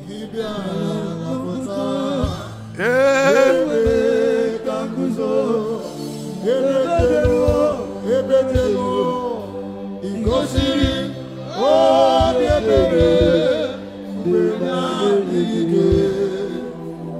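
Gospel singing: a voice sings long, wavering phrases with vibrato over a steady musical backing.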